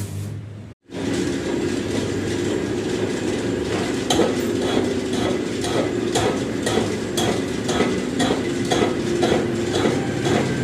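Shaktiman rotavator's PTO gearbox and drive running, a steady hum with regular metallic clacking a couple of times a second.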